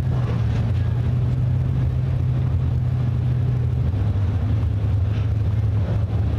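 A pack of dirt late model race cars with crate V8 engines running together in a deep, steady drone. The pitch drops slightly about four seconds in.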